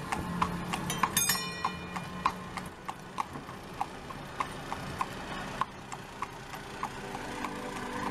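Short, evenly spaced clops, a little under two a second, over a faint low hum, with a brief bell-like ringing about a second in.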